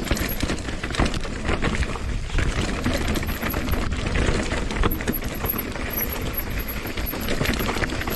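Mountain bike riding down a rocky trail: tyres crunching over stones and the bike rattling in a constant clatter of small knocks over a steady low rumble.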